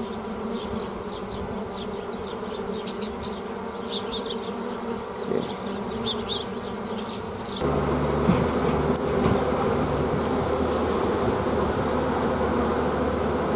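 Honeybees buzzing around an opened hive as its frames are inspected: a steady hum that grows louder and fuller about halfway through.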